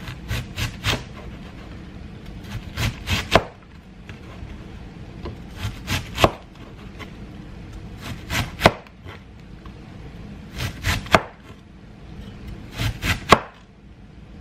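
Knife strokes on a wooden cutting board, coming in short runs of three or four sharp chops about every two seconds, over a low steady hum.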